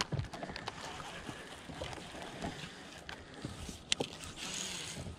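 Handling sounds of a baitcasting rod and reel: scattered small clicks and taps, a sharp click about four seconds in, and a short hiss just after.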